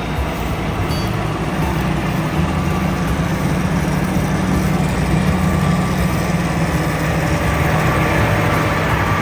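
Heavy diesel farm machinery running steadily: a constant low engine drone with an even mechanical rush over it.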